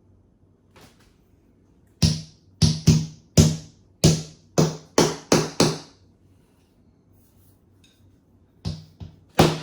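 A metal kitchen rail being banged into its fitting, a quick series of sharp knocks that each ring briefly. About nine strikes come in a run, then after a pause a few more begin near the end.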